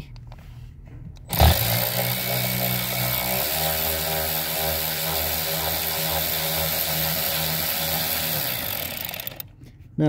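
Battery power tool spinning a 7mm socket on an extension, running out the bolt that holds a brake pedal position sensor. It starts suddenly, runs steadily for about eight seconds with one small shift in pitch, then stops.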